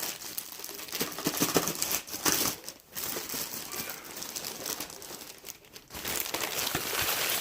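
Cardboard and plastic packaging being handled, crinkling and rustling with small knocks, pausing briefly about three seconds in and again near six seconds.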